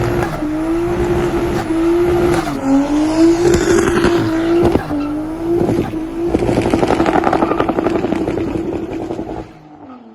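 Straight-piped Nissan RB20 turbo six running hard at high revs. The pitch dips and climbs back every second or so. In the later part there is a fast rattling chatter, and the sound fades out near the end.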